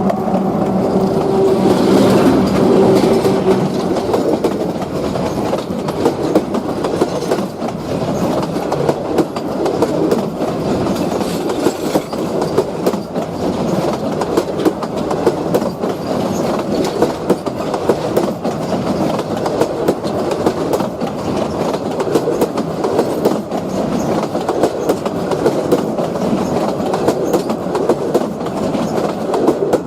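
A train passing close by, its wheels clattering continuously over the rail joints with dense metallic clicks. A steady low pitched hum heard at the start fades away within about three seconds.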